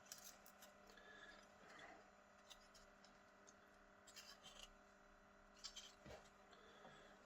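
Near silence: a faint steady electrical hum with a few light scrapes and ticks from a soldering iron and solder being worked on a circuit board's joints.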